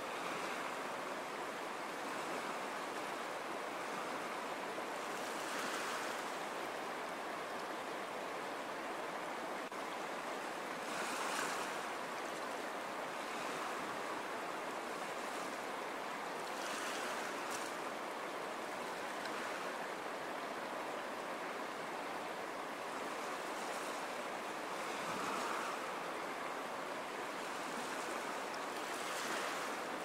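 Ocean surf: a steady rushing wash of small waves, swelling every five or six seconds as a wave breaks.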